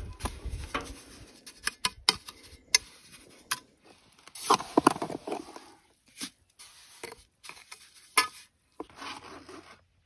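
Steel trowel scraping wet mortar and tapping against granite stones as mortar is packed into the joints of a stone wall: scattered sharp clicks and taps, with a longer scrape about halfway through.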